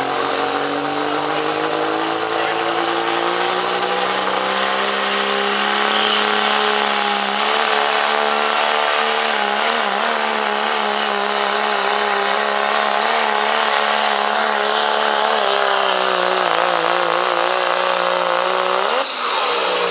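Diesel Dodge Ram pickup engine at full power dragging a pulling sled. Its pitch climbs over the first few seconds, then holds high with a slight waver. Near the end it flares up sharply and starts to fall away as the pull ends.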